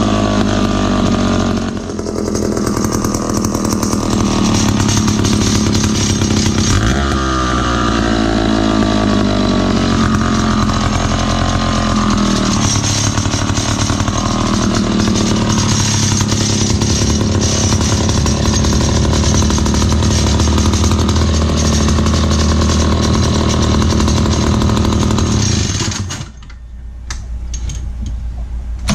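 Lancaster Pump 655 chainsaw's Tecumseh-marked two-stroke engine running with no bar or chain fitted, revving up and down a few times and then holding steady at high revs. About 26 seconds in the revs drop sharply, then climb again near the end.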